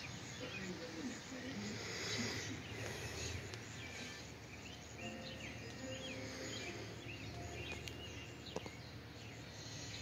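Outdoor ambience with birds chirping: many short, varied calls over a steady low hum, and one brief click about eight and a half seconds in.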